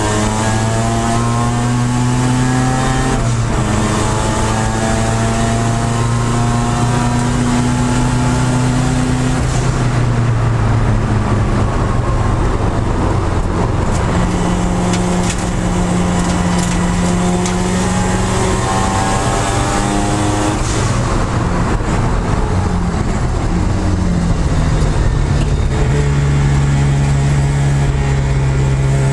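Mazda RX-7 (FD) race car's twin-turbo engine heard from inside the stripped, caged cabin while lapping a circuit hard: revs climbing and dropping with gear changes, a rougher stretch of braking and downshifts about a third of the way in, then revs building again near the end.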